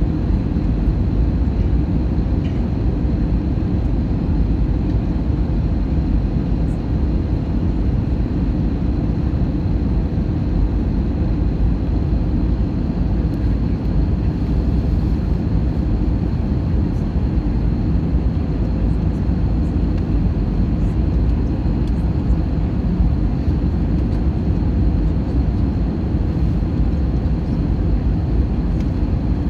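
Steady low rumble of a jet airliner's engines and rushing air, heard inside the passenger cabin during the descent to land, with a faint steady high whine.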